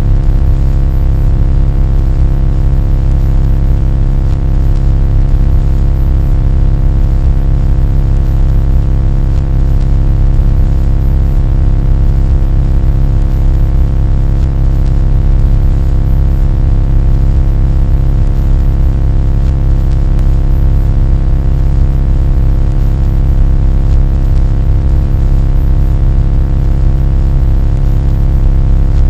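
Loud, steady low rumble with a constant drone of many fixed tones above it, unchanging throughout.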